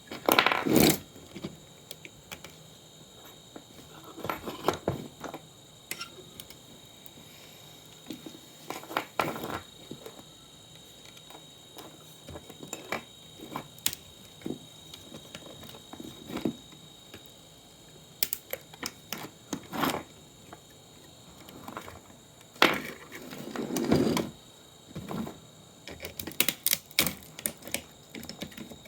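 Irregular clicks, taps and short clatters of parts and tools being handled while an old monitor is taken apart, with louder scraping clatters at the start and again about two-thirds of the way in.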